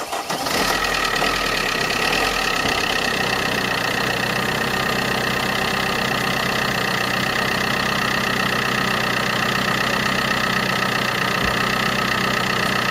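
Vauxhall Corsa D 1.3 CDTI four-cylinder diesel engine catching at the start and running, its revs settling to a steady idle after about three seconds. It is the engine running again with its water-damaged ECU repaired and refitted, where before it would not start.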